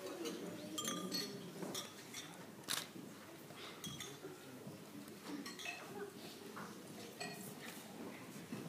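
Glasses and cutlery clinking on a dining table, many light chinks scattered over several seconds, over a low murmur of voices.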